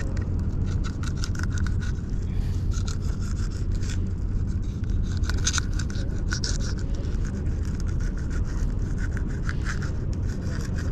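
A knife scraping the scales off a pejerrey: a rapid run of short, irregular scratchy strokes, over a steady low rumble.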